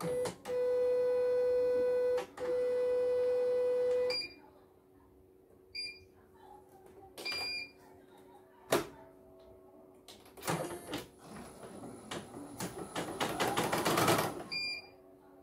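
CNY computerized embroidery machine's beeper sounding two long steady beeps, then a few short high beeps as its front-panel buttons are pressed. Near the end comes a stretch of rapid mechanical clicking from the machine's mechanism, getting louder; the technician finds it working normally.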